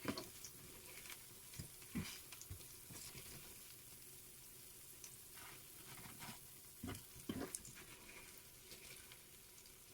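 Faint sizzling of hot cooking oil from frying sweet potato fritters, with a few light knocks and clicks of a utensil.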